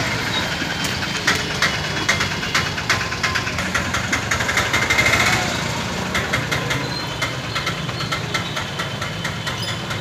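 A vehicle engine idling steadily, with a fast clatter of clicks over it.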